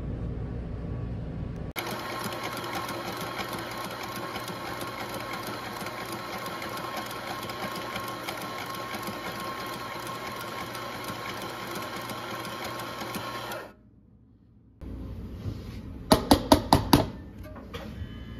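Espresso grinder running steadily as it grinds coffee into a portafilter, starting abruptly and stopping suddenly after about twelve seconds. A few seconds later come five quick, sharp taps.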